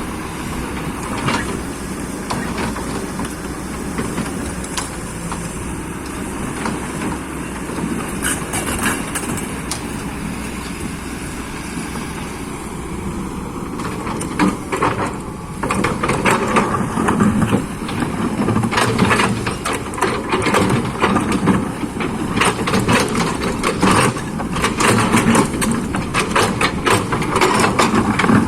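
Excavator's diesel engine running steadily. From about halfway a dense run of knocks and scrapes sets in and the sound grows louder.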